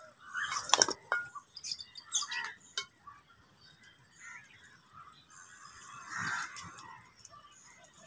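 House crows feeding at a metal bowl, giving a few calls, the loudest in the first second and another about six seconds in. Sharp clicks and clinks of beaks pecking the bowl come in the first three seconds.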